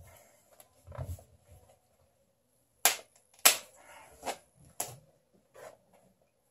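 Worn-out pants being torn apart by hand: about five sharp rips as the threads give way, the two loudest about three seconds in.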